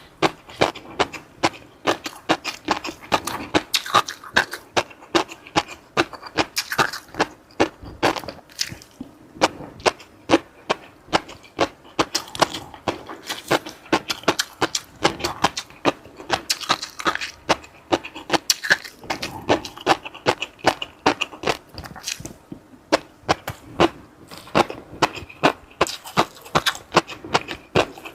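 Close-up eating sounds: food being bitten and chewed, with sharp crunches coming about three or four a second.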